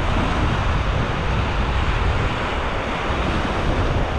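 Small waves breaking and washing up a sandy beach, mixed with wind buffeting the microphone as a steady low rumble.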